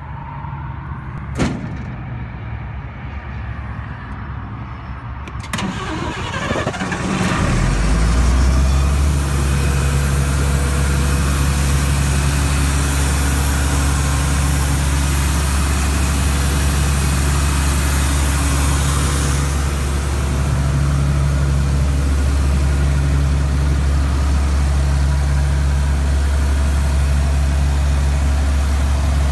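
Ingersoll Rand XP750WCU portable compressor's Cummins diesel engine starting about six seconds in, after a sharp click, then running steadily with a deep low hum.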